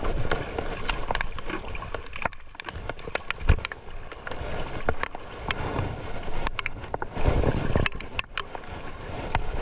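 Water sloshing and slapping against a small fishing boat's hull, with wind buffeting the microphone in low rumbles, strongest about three and a half and seven seconds in. Many scattered sharp clicks and knocks sound throughout.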